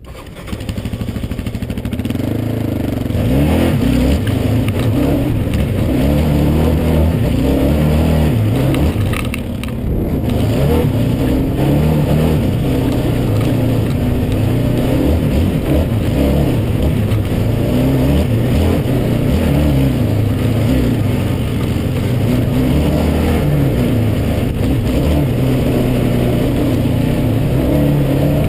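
Yamaha Raptor 700 sport ATV's single-cylinder engine pulling hard under throttle across sand, its pitch rising and falling as the rider works the throttle and gears. It builds up over the first couple of seconds, and there is a brief let-off about ten seconds in.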